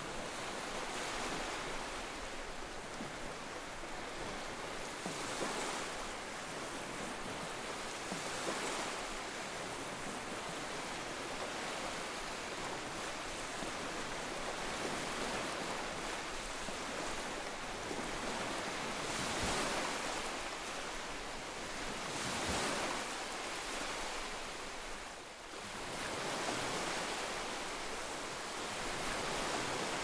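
Ocean waves washing over rocks: a continuous surf hiss that swells as a wave breaks every few seconds and then eases back.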